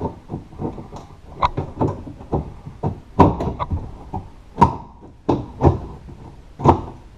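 Outside door handle assembly knocking and clacking against the door's sheet-metal shell as it is wiggled and worked free of its hole: irregular sharp knocks, the loudest a little past the middle and near the end.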